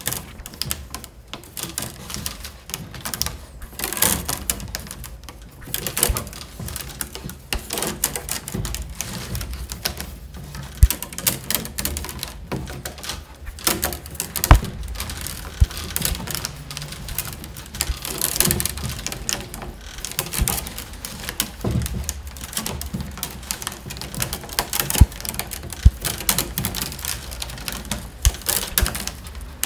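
Peeled willow rods clicking, creaking and rustling as they are woven by hand in and out of the stakes of a round wicker tray, with irregular clicks throughout.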